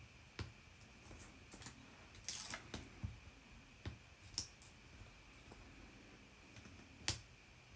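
Faint rustles and small clicks of paper and card pieces being handled and positioned by hand, with a sharper tap about seven seconds in.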